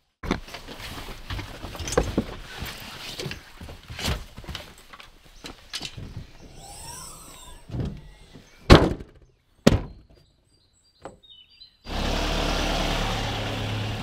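Equipment bags being loaded into the back of a van, with scattered knocks and rustling, then a loud thunk about nine seconds in as a van door shuts and a smaller knock a second later. From about twelve seconds a vehicle drives past, a steady noise with a low rumble.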